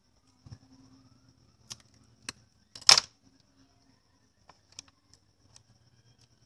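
Sharp clicks of a pair of scissors and handling on a tabletop, with one much louder clatter about three seconds in.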